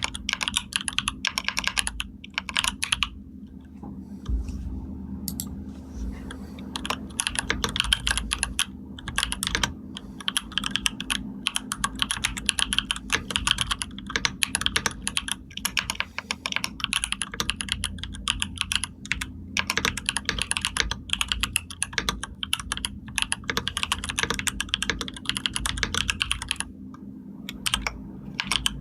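Typing on a computer keyboard: fast, continuous runs of key clicks, broken by a pause of a couple of seconds a few seconds in and a short one near the end, over a faint steady low hum.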